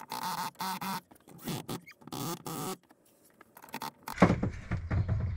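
Cordless electric screwdriver running in four short bursts, driving screws into plywood ceiling panels, its motor pitch wavering as each screw bites. A little after four seconds, low rumbling and knocking noise takes over.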